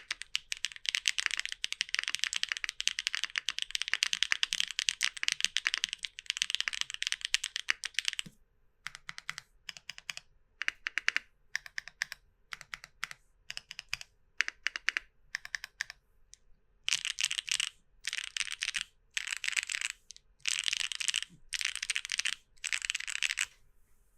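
Mechanical keyboard with lubed, full-POM Gateron Banana Smoothie heavy tactile switches on a polypropylene plate, being typed on. Fast continuous typing for about eight seconds, then single key presses and small clusters spaced apart. Near the end come five short bursts of rapid typing, each lasting about a second.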